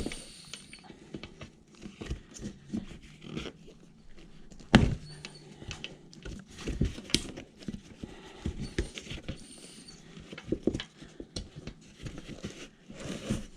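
Irregular clicks, knocks and rubbing from hands working an e-bike's deflated rear tire on its rim, with one louder knock about five seconds in.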